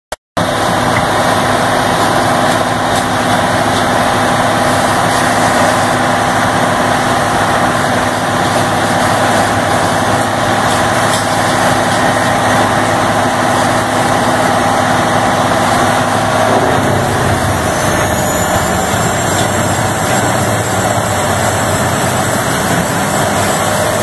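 Vermeer HG8000 horizontal grinder with its 1,000 hp turbocharged engine running loudly and steadily while it shreds trees. About two-thirds of the way in the sound shifts, and a high turbo whistle rises and then holds.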